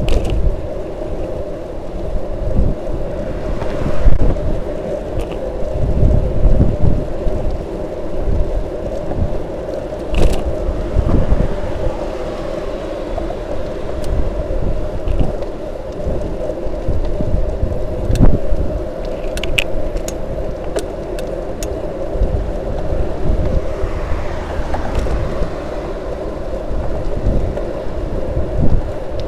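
Wind buffeting the microphone of a camera on a moving bicycle, in uneven low gusts over a steady hum, with a few light clicks about two-thirds of the way through.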